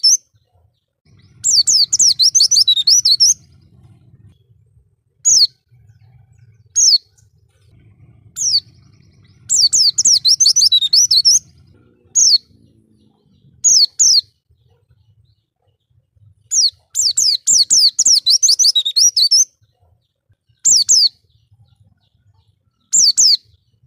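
Oriental white-eye (pleci) singing: three fast, high twittering phrases of about two seconds each, with single short, high, falling calls in the gaps between them.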